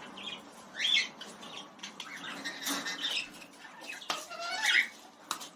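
Caged small parrots, lovebirds and budgerigars among them, squawking and chirping in short scattered calls, with a few sharp clicks in between.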